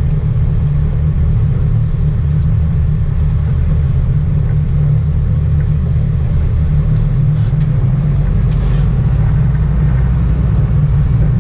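Sport-fishing boat's inboard engines running steadily at trolling speed: a loud, even, deep drone.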